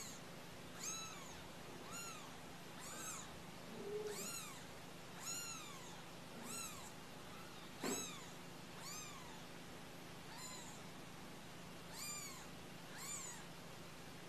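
Kittens mewing, about a dozen short high-pitched cries roughly one a second, each rising then falling in pitch. A lower short call comes about four seconds in and a soft knock near eight seconds.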